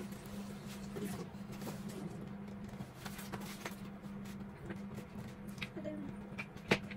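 Light taps, clicks and scrapes of wooden bed-frame slats being handled and fitted together, over a steady low hum, with one sharp knock near the end.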